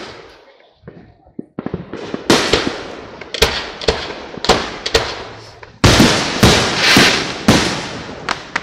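Aerial fireworks shells bursting in a rapid series of sharp bangs, each trailing off in a long rumbling echo. The bangs come thickest and loudest through the middle.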